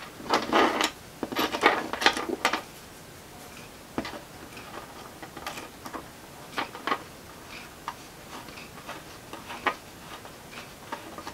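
Small 3D-printed plastic parts and a metal screw clicking and rattling as they are fitted together by hand, then a hex key turning the screw, giving scattered light, irregular clicks.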